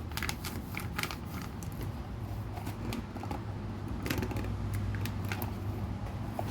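Scattered light clicks and small handling noises, over a low steady hum that grows a little louder about four seconds in.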